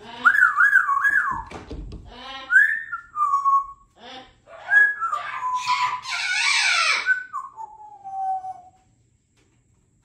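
Congo African grey parrot whistling and chattering: a wavering, warbling whistle at the start, then rising and falling whistles and speech-like babble. About six seconds in comes a harsh, raspy squawk, and it ends on a long falling whistle.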